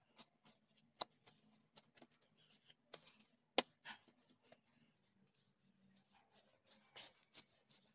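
Gloved hands pressing and patting a ball of pastry dough on a floured wooden board, then a rolling pin rolling it out: a string of soft taps and rustles, with one sharper knock a few seconds in.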